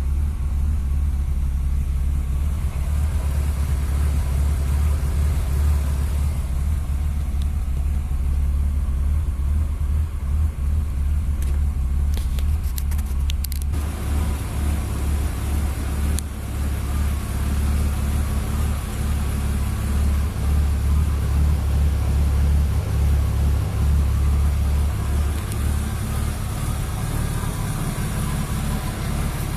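BMW E36 325i's 2.5-litre straight-six idling steadily with a slight lumpy wobble: a rough idle that the owner traced to a failing O2 (lambda) sensor. A few clicks come around the middle, after which more of the engine's higher sound comes through.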